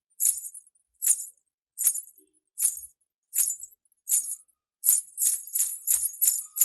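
Anklet bells (pattilu) jingling in a walking rhythm, used as foley for a bride's footsteps: evenly spaced jingles about every three-quarters of a second, quickening to about three a second after about five seconds.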